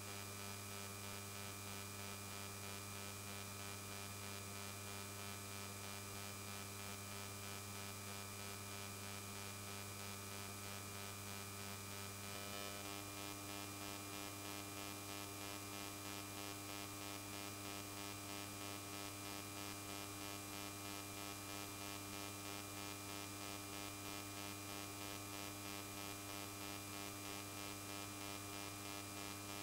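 Steady electrical mains hum with a faint hiss: a constant low tone with several evenly spaced higher tones. A little before halfway through, one of the higher tones changes and the hum shifts slightly.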